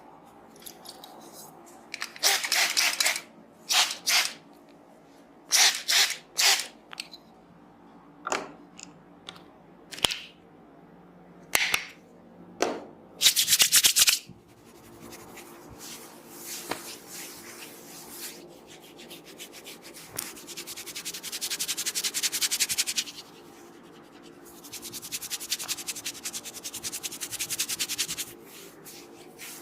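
Hands rubbing and scratching through hair and scalp in a close-miked head massage. It starts as a series of short rasping strokes, then turns into two longer spells of fast, rhythmic scratching.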